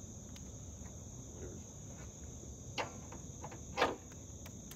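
Steady high-pitched insect chorus of crickets, with two brief clatters about three and four seconds in, the second louder.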